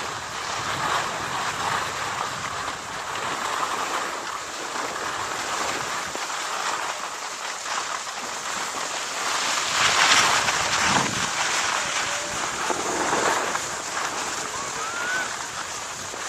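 Steady hissing, rushing noise with little low rumble, swelling louder for a moment about ten seconds in.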